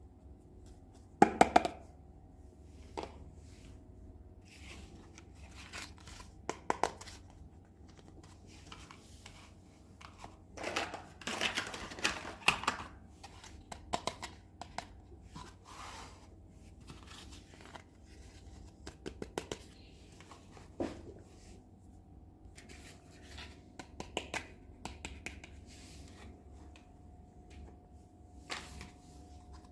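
Hands unboxing a miniature toy kitchen set: scattered clicks and taps of small toy pieces being handled, with a stretch of tearing and crinkling packaging near the middle.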